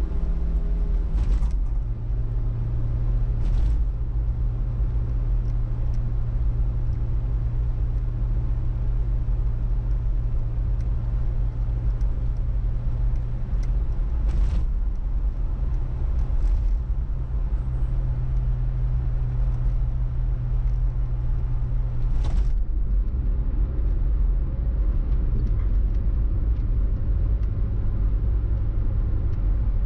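A car driving, heard from the car: steady low engine and road rumble, with the engine note shifting up or down a few times. A few short clicks or knocks sound over it, one within the first two seconds and one about twenty-two seconds in.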